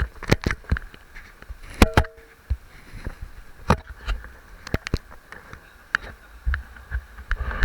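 Sounds of a river raft on the water: irregular sharp knocks and splashes, several a second at times, over a steady rush of moving water and a low rumble.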